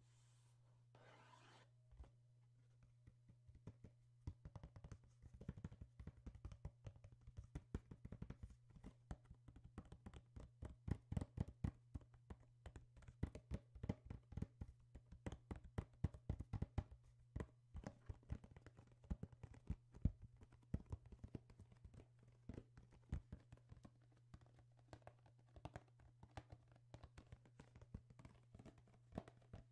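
Pestle tapping and grinding against a white mortar: quick, irregular small knocks that begin a few seconds in and are densest in the middle.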